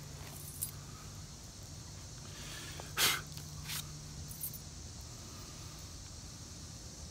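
Person kneeling and handling gear at a wooden stump: handling noises, with one short, loud scuff about three seconds in and two softer ones soon after, over a faint steady low hum.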